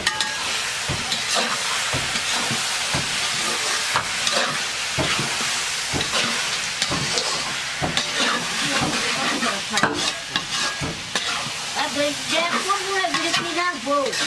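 Duck curry sizzling in a large metal wok, stirred with a long-handled spatula that repeatedly scrapes and knocks against the pan.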